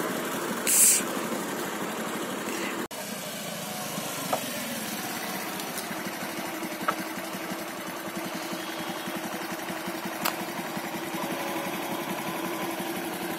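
Small motor scooter engine running steadily at low speed. A short, loud burst of hiss comes about a second in.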